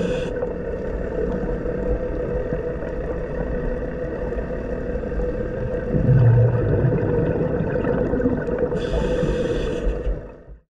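Underwater ambience on a scuba dive: a steady drone with a low swell about six seconds in, and a hissing burst of about a second near the end, typical of a diver's regulator exhaling bubbles. The sound cuts off abruptly just before the end.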